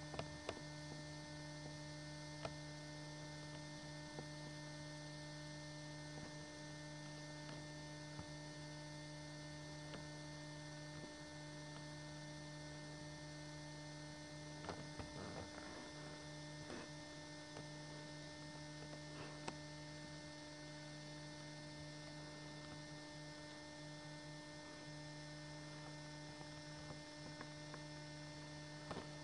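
Steady low electrical hum, with a few faint clicks now and then.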